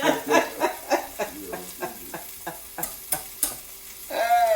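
A utensil stirring and scraping food in a frying pan, in quick strokes about three a second, with the food sizzling.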